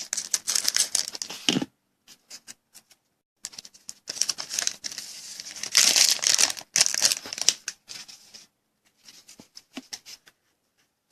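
A foil wrapper of a Certified football card pack being torn open and crinkled by hand, in irregular crackly bursts that are loudest about four to seven seconds in.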